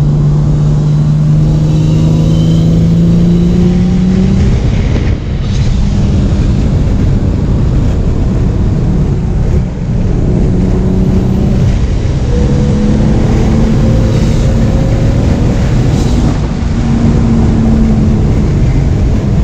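Single-turbo BMW engine in a swapped Subaru WRX, heard loud from inside the cabin under acceleration with an open exhaust: its pitch climbs over the first few seconds, the sound dips briefly about five and ten seconds in, then it pulls on with slow rises in pitch.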